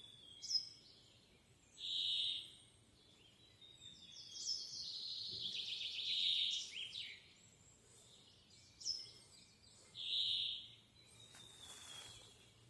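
Birdsong: thin, high, slightly falling whistles typical of a hazel grouse, mixed with other birds' calls and a fast trill in the middle.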